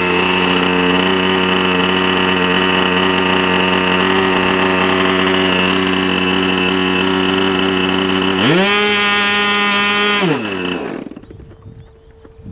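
RC Piper J-3 Cub model airplane's small engine idling steadily, then opened up sharply to full throttle about eight and a half seconds in and held for about two seconds, before it is throttled back and cuts out about eleven seconds in.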